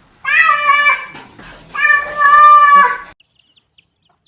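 A cat giving two loud, long drawn-out meows, the second longer than the first, cut off suddenly about three seconds in.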